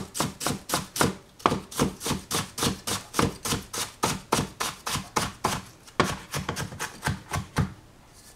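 Chinese cleaver slicing ginger thin on a plastic cutting board, in rapid, even knocks of about five a second. There is a brief pause about a second in, and the knocking stops near the end.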